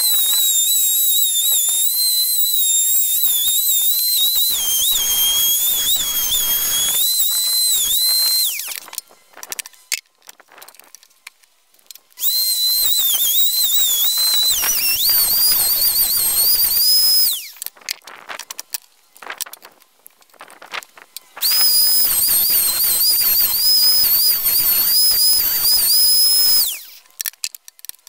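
Plunge router running and cutting plywood on a circle-cutting jig: three runs of a high whine, each five to eight seconds long, with the pitch wavering and dipping as it cuts, and quiet gaps between them.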